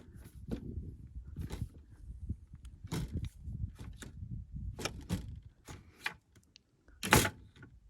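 Irregular clicks and knocks of door latch hardware being handled and fitted back into place, with a louder click about seven seconds in.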